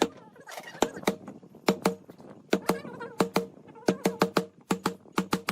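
A hammer striking wood in quick, uneven knocks, about three a second and often in pairs, each with a short ringing resonance.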